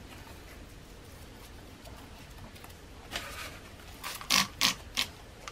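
Faint scraping and ticking as a gloved hand stirs cement and sand in a plastic bowl. Near the end come three quick, hissy squirts as water from a plastic bottle is squeezed into the mix to wet it.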